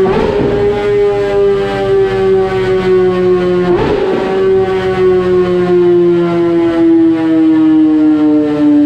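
2018 Kawasaki ZX-10R's inline-four engine running at high revs through a decat link pipe and K67 carbon-fibre slip-on exhaust: a loud, steady note whose pitch sinks slowly. Two short rough bursts break in, one near the start and one about four seconds in.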